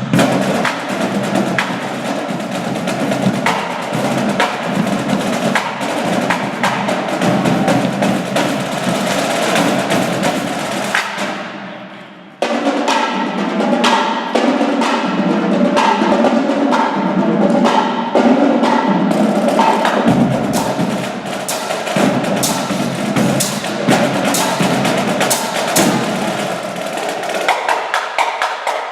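Percussion music played live: drums with sharp, wood-block-like clicks in a dense, continuous rhythm. It fades down about twelve seconds in, then cuts back in abruptly at full level.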